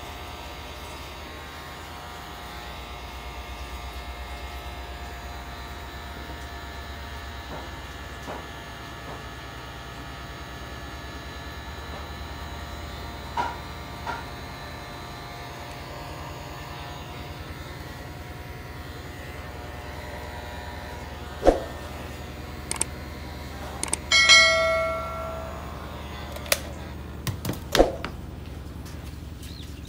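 Stanley heat gun running steadily on test after a heating-element replacement, its fan motor giving an even hum. A few sharp knocks and clicks come in the last third, along with a short pitched call near the end.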